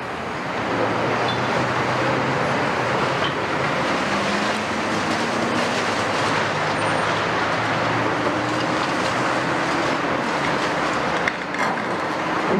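Demolition excavators at work: the diesel engines of the CAT 330F and Liebherr 974 run under hydraulic load, their pitch shifting, over a steady clatter of concrete rubble and scrap. A couple of sharp knocks come near the end.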